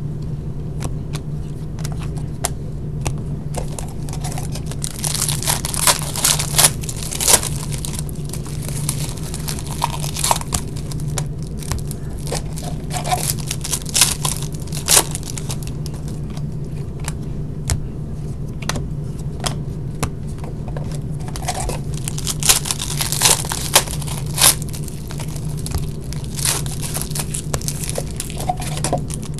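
Foil trading-card pack wrappers being torn open and crinkled, with irregular sharp crackles and rustling as the cards are handled. A steady low hum runs underneath.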